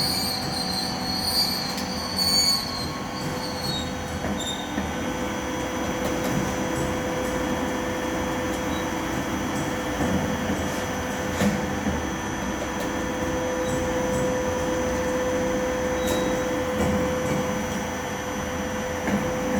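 Two-stage chili pepper processing machine running under load on a trial run, a steady mechanical whine over a rumble. There are occasional sharp clicks, and a high squeal in the first few seconds.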